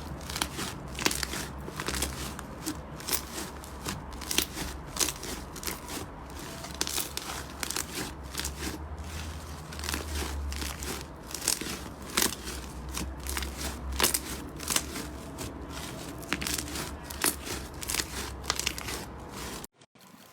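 Slime being squeezed and pressed close to the microphone, giving a dense run of crackling, crunching clicks over a low hum. It cuts off suddenly near the end.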